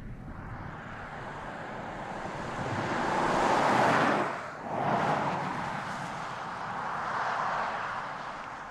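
An Audi Q7 e-tron SUV passing by at speed. Its tyre and road noise swells to a peak about four seconds in, dips for a moment, then fades slowly as it drives away.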